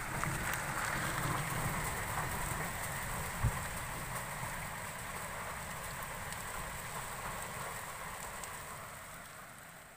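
Steady hiss of rain falling, with wind rumbling on the microphone. There is a single knock about three and a half seconds in, and the sound fades near the end.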